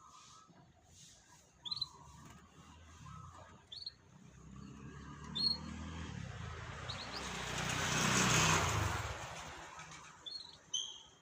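Short single bird chirps, about one every two seconds, while a motor vehicle passes by: its engine hum and tyre hiss swell to loudest just past the middle, then fade away.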